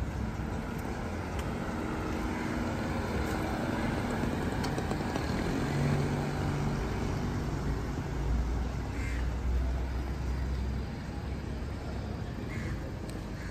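Street traffic: the steady noise of passing motor vehicles, with one engine's low hum growing loudest about eight seconds in and fading about three seconds later.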